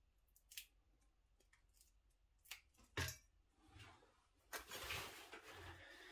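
Faint clicks and small tearing sounds as cooked chicken is pulled apart by hand over steel dog bowls, then a single knock about three seconds in. Over the last second and a half comes a louder rustling and scraping as the metal bowls go down on a tiled floor with the dogs moving about them.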